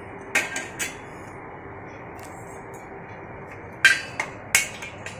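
Metal cookware clanking sharply as a brass pot is set on the gas stove: three quick clanks about half a second in, then four more near the end.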